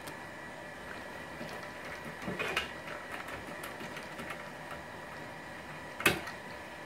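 Handling noise from the plastic dish reflector of a Ubiquiti LiteBeam AC Gen2 antenna being assembled: soft knocks and rubbing about two and a half seconds in, then one sharp click about six seconds in, over a faint steady hum.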